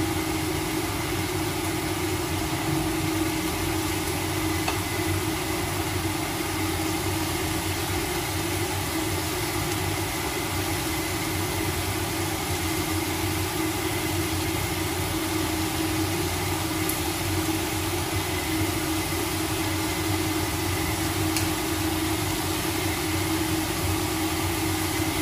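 Steady, unchanging hum of a fan motor with rushing air.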